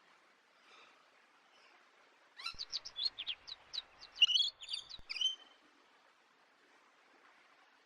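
A bird singing one short song of quick, high chirps, lasting about three seconds and starting about two and a half seconds in, over a faint background hiss.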